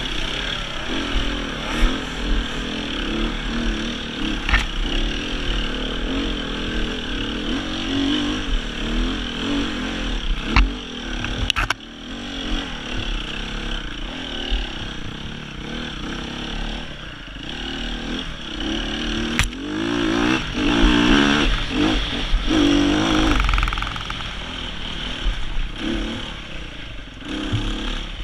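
Sherco 300 four-stroke enduro motorcycle's single-cylinder engine revving up and down under load on rough trail, loudest as it is opened up a little past two-thirds of the way through. Sharp knocks and clatter from the bike over the terrain come several times, with a steady low rumble of wind on the helmet microphone.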